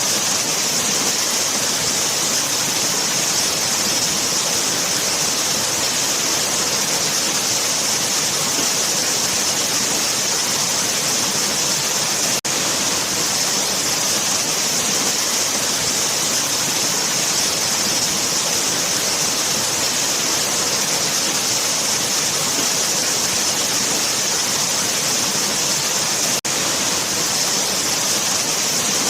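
Waterfall: a steady, unbroken rush of falling water, with two momentary dips in level, about twelve seconds in and again near the end.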